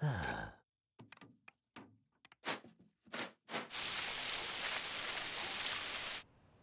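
A short thunk, a few scattered clicks and knocks, then a garden hose spray nozzle blasting water against a car door for about two and a half seconds before stopping suddenly.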